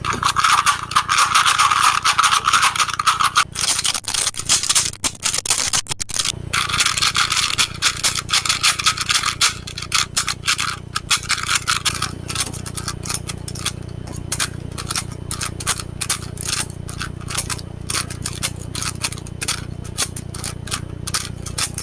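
Plastic Rubik's cube being turned rapidly by hand: its layers scraping and clicking in quick runs, with thick clusters of sharp clicks in the second half.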